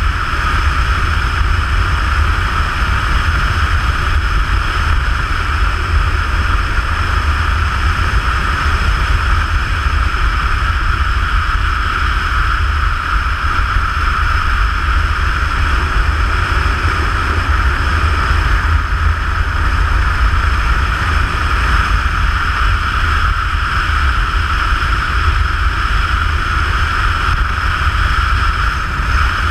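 Motorcycle cruising at a steady speed, heard as constant wind rush and rumble on a bike-mounted camera's microphone mixed with the engine's steady drone. The sound stays even, with no shifts or revving.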